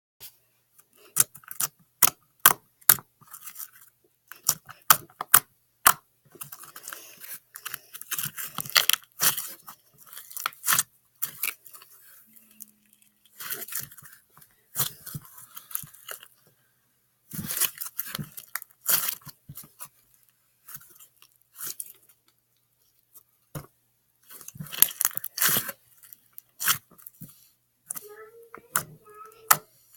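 Slime being squeezed and poked, giving sharp clicking pops and crackles in irregular clusters with short pauses between them.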